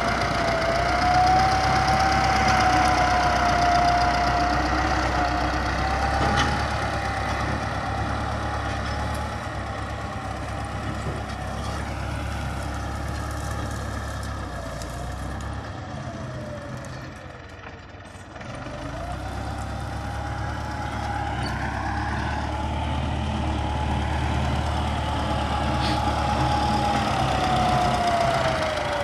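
Belarus tractor's diesel engine running as it pushes a front dozer blade through scrub, with a steady low rumble. It is loud close by, fades to its quietest a little past halfway as the tractor works away, then grows louder again as it comes back near.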